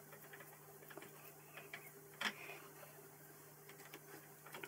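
Faint small metallic clicks and ticks as a hex key turns the cap screw that clamps a steel lathe carriage stop onto the lathe bed's V slide, with one sharper click about two seconds in. A faint steady hum runs underneath.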